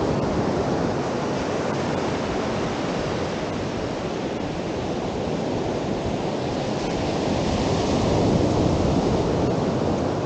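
Ocean surf washing onto a beach: a steady rush of waves that swells to its loudest about eight seconds in.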